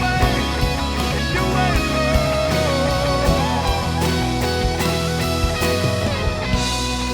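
Live worship band playing a rock-style instrumental passage: a wavering electric guitar melody over held chords, with regular drum hits.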